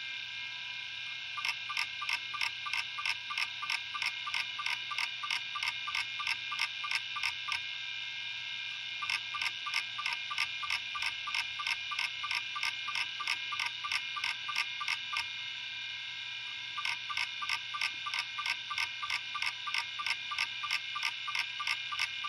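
Open Western Digital Caviar 2340 hard drive running with a steady high whine, its head actuator seeking in regular clicks about four to five a second. The clicking comes in three long runs, pausing briefly about a third and two thirds of the way through while the whine carries on.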